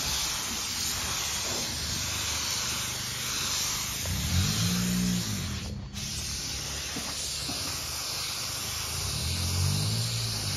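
Gravity-feed air spray gun hissing steadily as it sprays plastic primer onto a bare plastic bumper. The hiss breaks off for a moment about halfway, and a low hum swells twice underneath.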